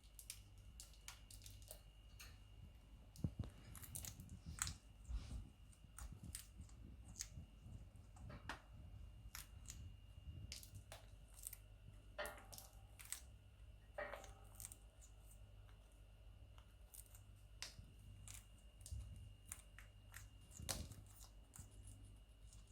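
Indian ringneck parrot biting and crunching broccoli with its beak: faint, irregular small clicks and crunches, a few a second.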